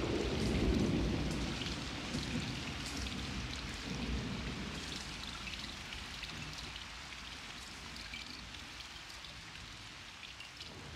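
Steady rain with a low roll of thunder in the first few seconds that dies away; the rain slowly fades out.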